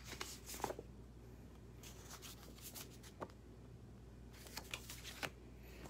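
Sheets of plaid patterned paper being handled and fanned through by hand: soft scattered rustles and light taps, over a faint steady low hum.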